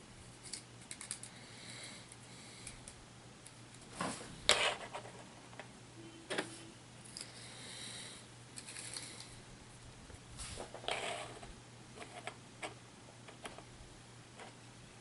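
Booster-pack packaging and small plastic miniatures being handled on a table: scattered light clicks, taps and crinkles, the sharpest pair about four seconds in and a longer rustle near eleven seconds.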